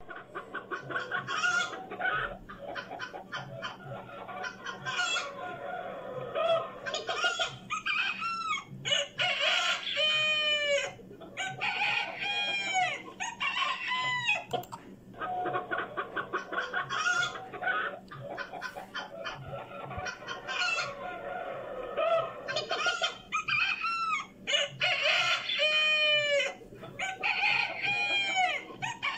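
A flock of chickens clucking and squawking, with roosters crowing several times in quick succession about ten seconds in and again near the end.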